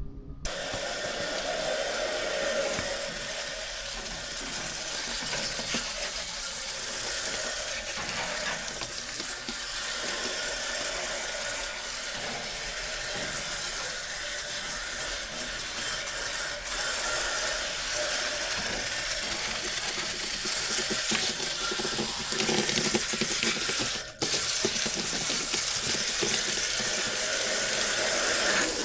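Steady rush of running water, with a brief break about four seconds before the end.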